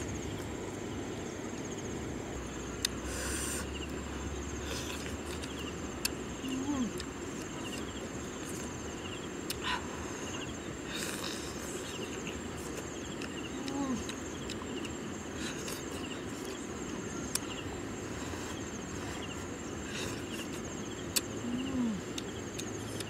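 Steady chirring of insects, with a few short clicks and smacking, sucking mouth sounds of someone eating crab by hand. A short low falling call comes about every seven or eight seconds.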